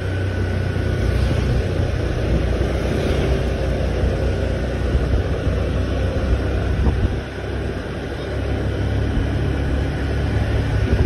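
Motor scooter riding along a street heard from the rider's seat: wind rumbling on the microphone over the engine and road noise, easing a little about seven seconds in.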